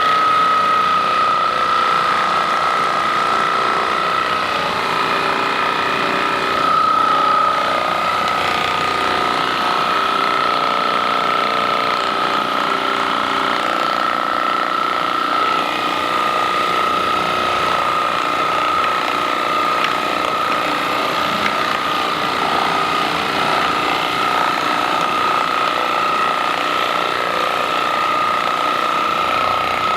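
Electric handheld percussion massager running continuously during a massage, a steady high motor whine over a rapid buzzing hammer that hardly changes in pitch.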